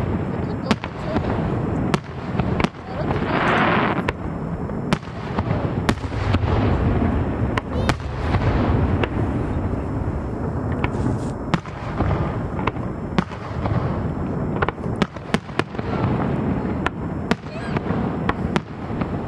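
Aerial fireworks shells bursting in an irregular run of sharp bangs, with a continuous rumble between them.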